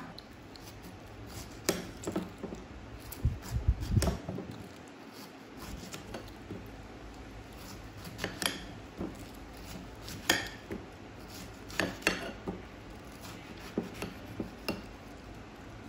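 Cutlery and dishes handled during food preparation: scattered light clinks and taps against a dish, irregular and spaced a second or two apart, with a heavier knocking thump around four seconds in.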